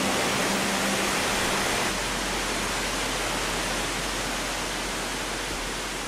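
Waterfall: a steady, dense rush of water falling down a rock face, slowly getting a little quieter. A held low musical note sounds under it for the first two seconds and then stops.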